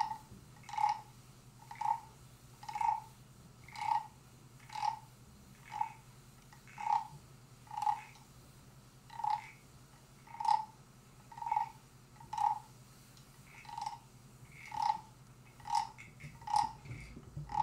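Classroom hand percussion played as a steady beat of about one stroke a second, each stroke a short knock with a brief ringing note, standing for raindrops in a children's rainstorm piece. A faint steady low hum lies underneath.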